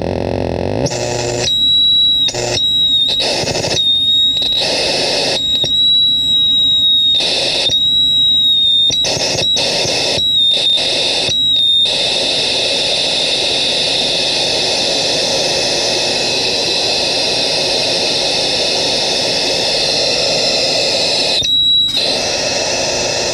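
Homemade crystal-radio noise synth putting out a loud electronic hiss and hum with a high steady whistle. For the first half the sound cuts in and out in quick, irregular chops. It then settles into an unbroken noisy wash, with one brief dropout near the end.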